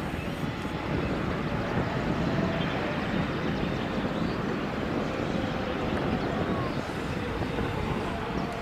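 Steady outdoor background noise: an even rumble with no distinct events, and faint tones drifting in and out.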